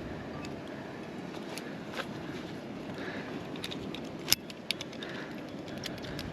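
Steady wind and sea noise aboard a sailboat, with scattered sharp clicks and clinks; two louder clicks come a little past the middle.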